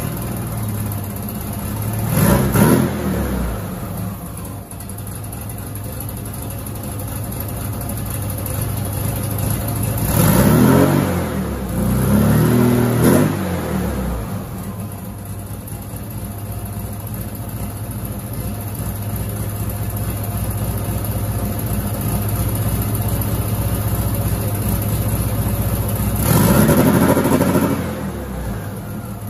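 Turbocharged air-cooled VW Beetle flat-four engine idling and revved in four short throttle blips, the last one near the end held longer, while its 2-step launch limiter is being set up.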